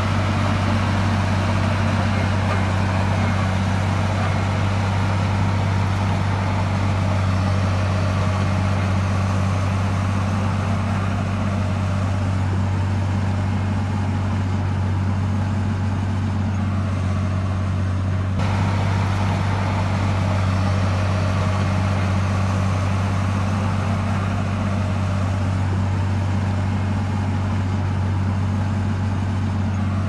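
Bulldozer's diesel engine running steadily, a deep even hum that holds one pitch with no revving.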